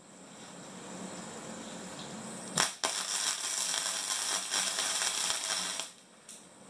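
Stick welding arc crackling and hissing steadily as the electrode burns against a steel tube, with one sharp crack about two and a half seconds in. The arc stops about six seconds in.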